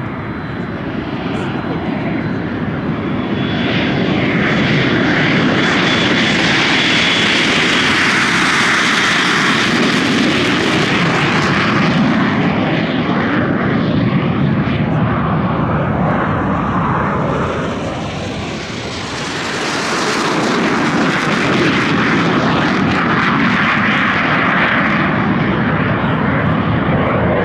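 Display aircraft flying past at an airshow, its engine loud and steady, easing off briefly about two-thirds of the way through and then swelling again as it comes back around.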